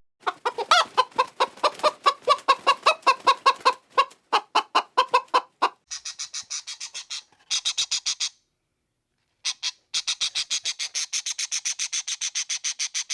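Chickens clucking in a fast run of short calls, several a second. Midway the calls turn higher and thinner, the sound cuts out for about a second, then the rapid high calls resume.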